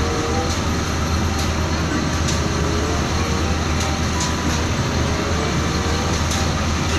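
Diesel engines of full-size concrete mixer trucks running close by as one moves off, a steady low rumble.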